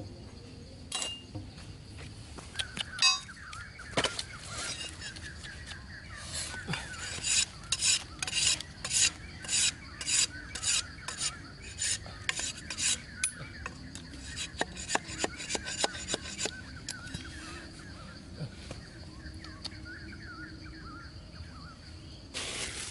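A large knife blade scraping along a thin stick, shaving it in quick repeated strokes, about two a second, which come in runs with short pauses. A steady insect hum runs behind it.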